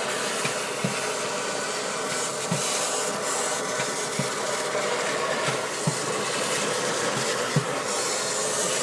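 Vacuum running steadily as its metal wand sucks loose gypsum powder out of a 3D printer's build bed, with a few small knocks scattered through it.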